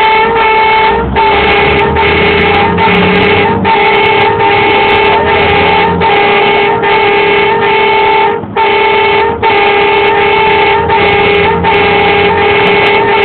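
Tow truck's horn sounded almost continuously, a loud steady-pitched tone broken by short gaps about twice a second, over the rumble of the truck's engine. It is clearing a path through stopped motorway traffic.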